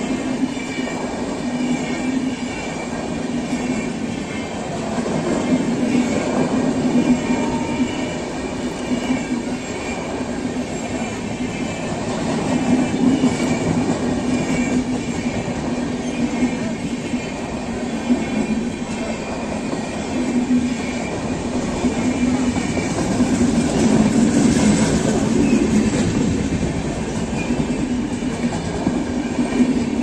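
Passenger coaches of an express train rolling past close by: a continuous rumble and clatter of steel wheels on the rails that swells several times as the bogies go by, with faint, thin, high steady tones above it.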